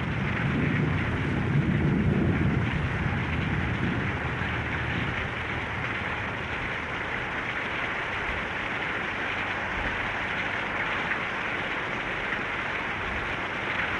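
Steady hiss of heavy rain, with a low rumble during the first few seconds.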